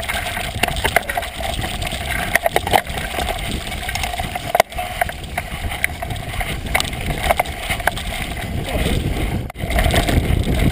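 Mountain bike riding over a muddy, leaf-strewn dirt track: knobby tyre noise on mud and leaves, with frequent clicks and knocks as the bike and its camera mount rattle over bumps. Wind rumble on the microphone grows stronger for the last second or so.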